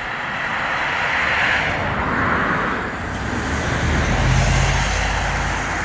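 A car passing on the road: tyre noise swells over the first couple of seconds, and the engine's low hum grows loudest about four seconds in before easing.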